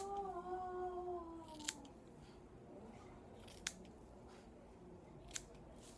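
Scissors snipping through hair while trimming bangs: four crisp snips, about two seconds apart.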